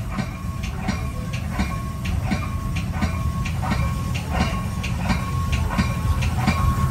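Metra commuter train's wheels clicking over rail joints and switches in quick pairs, about every three-quarters of a second, over a steady low rumble, heard from inside the leading cab car. A faint thin whine runs under it.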